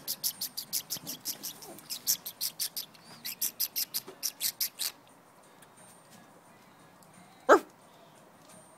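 Quick, even high clicking, about five or six a second, for the first five seconds. Then a single short, sharp dog yap about seven and a half seconds in, the loudest sound.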